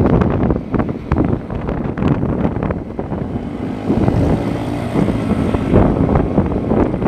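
Wind buffeting the microphone in irregular gusts, over a running engine.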